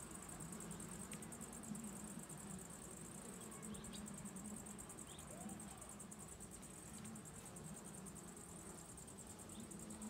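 Faint, steady hum of honeybees around an open hive, with a fast, high-pitched insect trill running over it.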